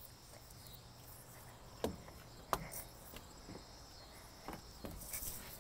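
Faint steady chirring of insects in the background. About two seconds in there are two sharp light knocks, the second the louder, with a few weaker ticks around them.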